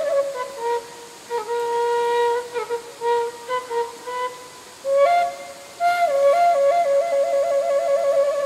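Sundanese suling bamboo flute playing a slow kecapi suling melody: long held notes broken by quick trills, once right at the start and again over the last few seconds.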